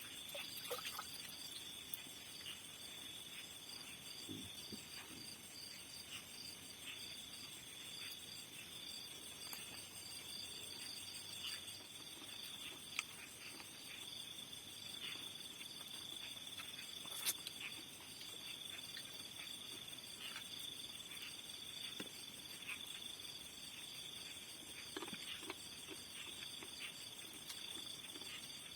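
Chorus of crickets and other insects trilling steadily in several high pitches, one of them pulsing, with scattered faint clicks and a sharper tick about 13 and 17 seconds in.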